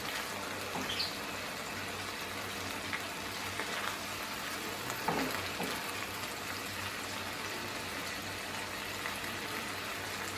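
Beaten egg frying on a low flame in a nonstick pan beside chicken pieces: a steady, quiet sizzle, with a few light scrapes and taps as a silicone spatula breaks the setting egg into small pieces.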